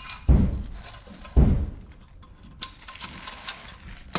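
Two dull thumps about a second apart, then light rustling and small clicks as a chrome slip-on muffler is handled and lifted out of its plastic wrap.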